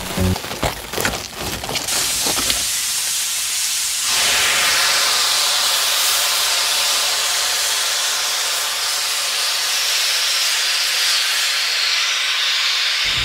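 Cartoon sound effects of a floor cracking: a flurry of sharp crackling clicks, then a loud steady hiss of jets spraying out of the cracks. The hiss swells about four seconds in and cuts off suddenly near the end.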